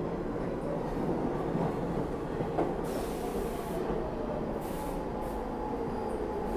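R46 subway train running into the station and slowing, its wheels rumbling on the rails. Two short bursts of hiss come about three and five seconds in, and a whine falls in pitch as the train slows.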